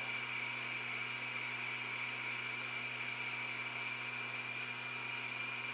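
Logan metal lathe running steadily while its boring bar takes a light spring pass inside the bore of a cast iron chuck back plate: a constant hum with a steady high whine.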